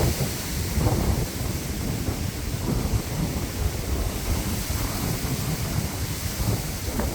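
Strong wind buffeting the microphone: a steady low rumble that swells and dips in gusts.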